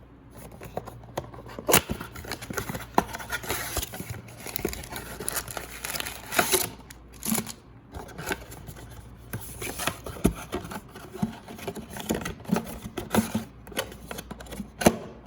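Crinkling, rustling and tearing of packaging as a Donruss Optic basketball blaster box is opened and its foil card packs are handled, in irregular short crackles throughout.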